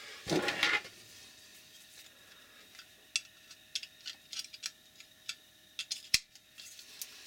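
Hands handling a plastic ML102 battery charger and its cable: a brief rustle, then a run of small plastic clicks and taps as the cable's plug is pushed into the charger's side socket, with one sharp click about six seconds in.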